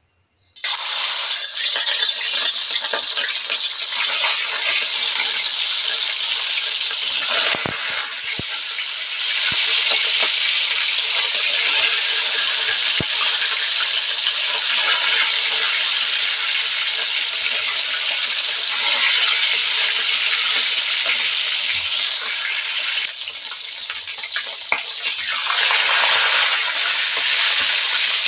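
Barracuda pieces frying in hot oil in a wok: a loud, steady sizzle that starts suddenly about half a second in as the fish goes into the oil. It eases briefly about a third of the way through and again near the end.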